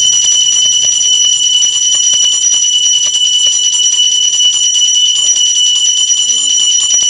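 Small brass hand bell (puja ghanta) rung rapidly and without a break, a bright ringing tone with many quick strokes a second.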